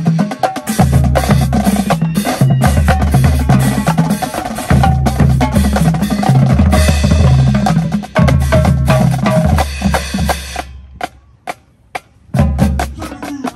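Marching band drumline playing a cadence: snare drums, tenor drums, several bass drums on different pitches, and crash cymbals. About 11 seconds in it stops short for a second or so, then comes back in.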